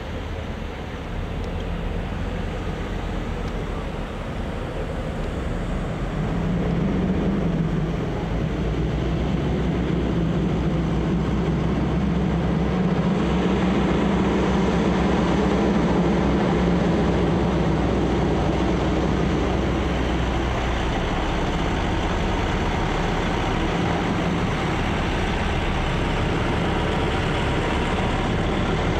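A slow-moving convoy of heavy trucks with escort cars drives past. Their engines make a steady drone that grows louder about seven seconds in and again about thirteen seconds in as the trucks draw near.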